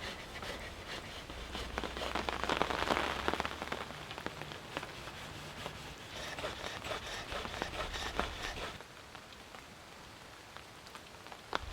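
A turning tool cutting green alder spinning on a spring pole lathe, a crackly, hissing scrape of shavings coming off in surges with the treadle strokes. It eases off for a few seconds near the end, and a sharp click follows.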